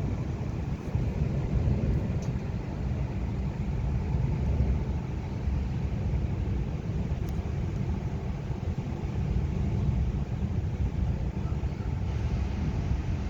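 Steady low rumbling noise in a rainstorm, wind buffeting the microphone over the hiss of rain, with no single loud clap.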